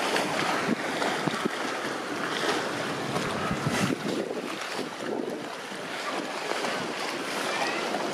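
Pool water sloshing and lapping against concrete walls, churned up by California sea lions swimming fast: a steady, irregular splashing wash.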